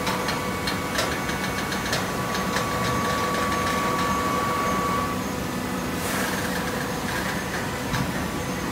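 Hydraulic fiber baling press running: a steady motor-and-pump hum with a whine that stops about five seconds in, a run of clicks near the start, and a brief hiss about six seconds in.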